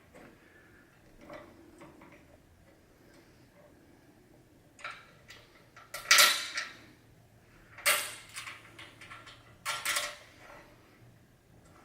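Steel rack parts and hardware clattering and clinking as they are handled during assembly, in a few short bursts, the loudest about halfway through.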